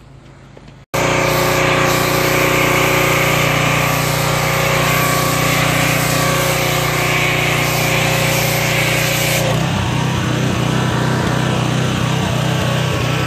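Pressure washer running with a foam cannon spraying soap: a steady motor drone under a loud spraying hiss. About nine seconds in the spray stops and the motor keeps running on its own.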